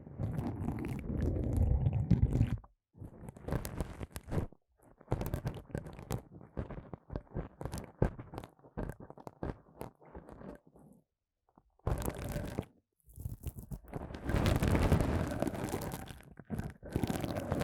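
Chenille pipe cleaners rubbed and scratched against a microphone's ear, giving bursts of fuzzy scraping and crackling separated by short pauses. The heaviest rubbing, full and muffled, comes at the start and again in the last few seconds, with lighter scattered strokes between.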